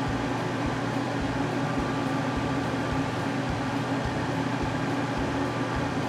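Bathroom exhaust vent fan running with a steady hum.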